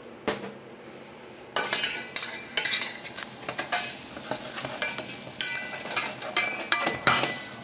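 Butter, sugar and water sizzling in a stainless steel saucepan as a metal spoon stirs peeled sweet chestnuts, scraping and clicking against the pan. The stirring starts about one and a half seconds in, after a single light knock, and the glaze is just beginning to caramelise.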